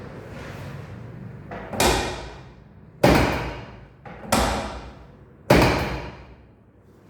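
Four loud knocks during a chiropractic adjustment, evenly spaced about a second and a quarter apart, each dying away over about half a second.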